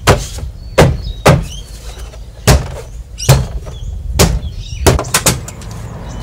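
Holden Commodore VE door trim panel being knocked into place by hand, its plastic retaining clips snapping into the door: about nine sharp knocks at uneven intervals, bunched up near the end.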